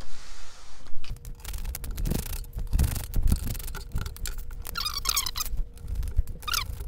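A hand screwdriver backing screws out of the amplifier's metal chassis to free the cooling fans, with a rasping scrape of the screws turning and irregular knocks and handling thumps against the case.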